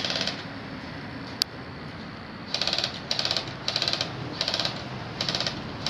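Electric airsoft guns firing short full-auto bursts, each a fast rattle of clicks lasting about a third of a second. One burst comes right at the start, then a run of five from about two and a half seconds in. A single sharp tick comes in between.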